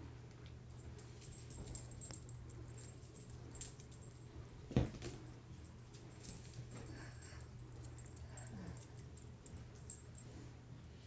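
Small dog's collar tags jingling in quick, irregular clinks as it jumps about and tugs at a rope toy, with one loud thump about five seconds in. A steady low hum runs underneath.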